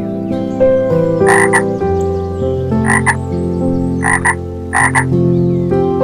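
A frog croaking: four short calls, each a quick double note, spaced about a second apart over soft background music.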